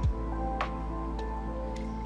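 Background music with a steady beat: a deep kick drum at the start and sharp percussion hits about every half second over sustained synth notes.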